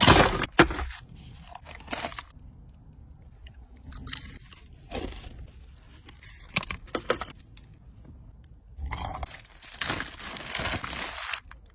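Crunchy bites and chewing of crispy fried chicken strips: a loud crunch right at the start, separate crunches every second or two, and a longer stretch of crunching near the end.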